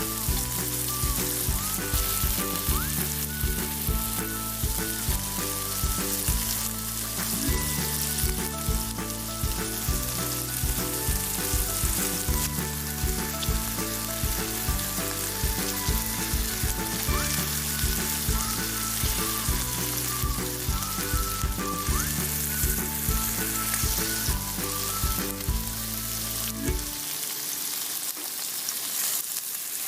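Food sizzling as it fries, a steady hiss, under background music with a bass line; the music's low notes drop out about three seconds before the end.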